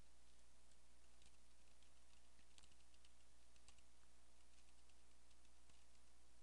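Faint computer keyboard typing: irregular, scattered keystroke clicks.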